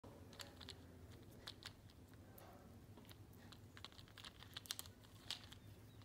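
Faint, irregular light clicks and taps of small plastic toys being carried and handled in parrots' beaks, like scattered typing, growing thicker and sharper about two-thirds of the way in.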